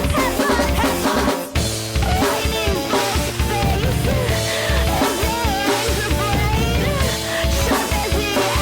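Loud art/noise punk band music: a drum kit drives it with bass drum and snare under bass and guitar, with a short break about a second and a half in before the band comes back in.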